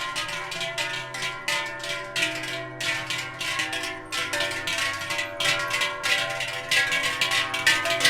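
Large cowbells clanging irregularly as cattle walk, each clang leaving several ringing tones that overlap and sustain.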